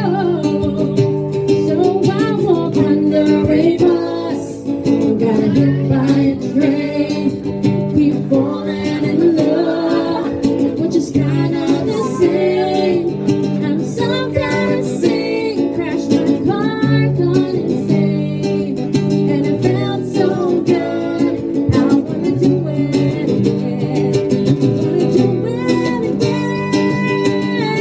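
Acoustic guitar played with a woman singing over it, live.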